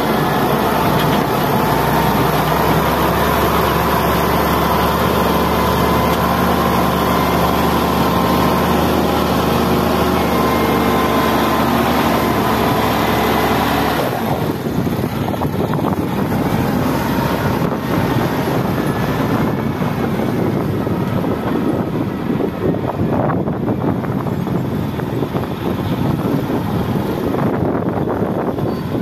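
XGMA wheel loader's diesel engine running close by, a steady engine note with a high whine over it. About halfway through the sound turns rougher and noisier, without the steady note, as the loader works a dirt pile and drives with a loaded bucket.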